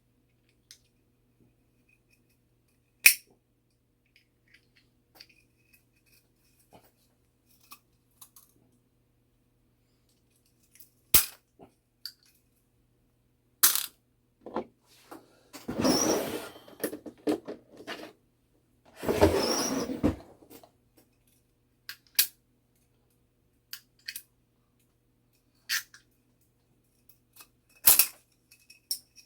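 Small metal clock-movement parts clicking and clinking as they are handled on a workbench: a few sharp, separate clicks, and about midway two longer stretches of scraping, rattling handling noise.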